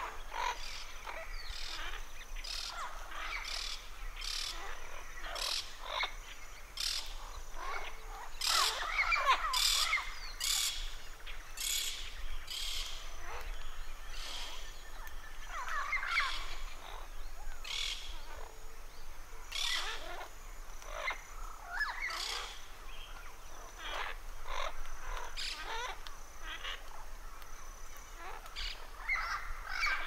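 Several blue-fronted amazon parrots calling: short calls repeated at irregular intervals, with a louder flurry of overlapping calls about nine seconds in.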